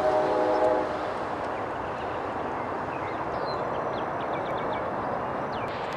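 A horn sounds for about a second at the start, a single held chord, over steady outdoor traffic noise. A few faint high bird chirps come in during the second half.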